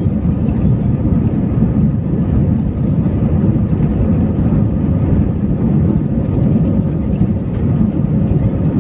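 Steady low rumble of an Airbus A320's engines and airflow heard inside the passenger cabin, with a faint steady hum above it.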